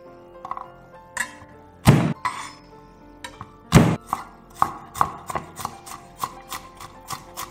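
Chef's knife chopping garlic on a wooden cutting board: two heavy strikes about two seconds apart, then a run of quick chopping strokes, about three a second, over soft background music.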